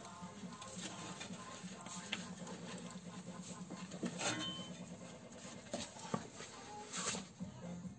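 Scattered small clicks and taps of handling, over a steady low hum.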